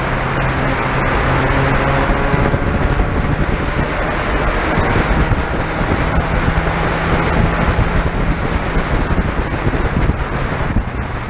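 Spec Racer Ford Gen3's four-cylinder engine running under throttle, buried under heavy wind rush on the open cockpit and the hiss of tyre spray off a wet track; the engine note sits a little higher in the second half.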